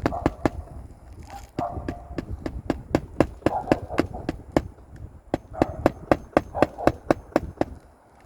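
A hand hammer driving roofing nails through asphalt shingles: a rapid run of sharp strikes, several a second, with a few short pauses between runs.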